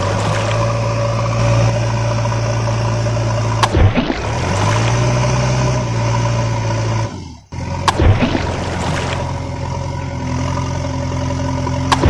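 Heavy truck engine running steadily at a low idle-like note, a sound effect laid over toy trucks, breaking off abruptly about four and again about seven and a half seconds in. Water splashes under it as the tipper is dragged out of the shallows.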